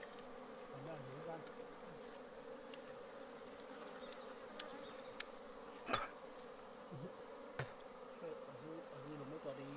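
A wild bee colony nesting in a hollow tree trunk, its bees buzzing in a steady faint hum as the nest is opened for its honeycomb. A few short sharp knocks come through, the clearest around six and seven and a half seconds in.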